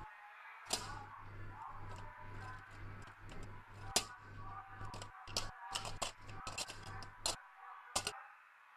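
Irregular sharp clicks and taps, a couple of them louder about four seconds in and near the end, over a low hum that cuts in and out.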